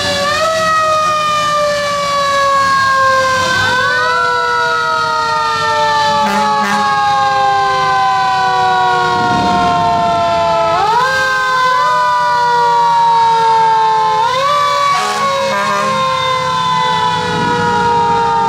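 Antique fire engine's siren wailing. It winds up quickly in pitch several times, and after each rise it coasts slowly down over a few seconds, in the manner of a mechanical coaster siren.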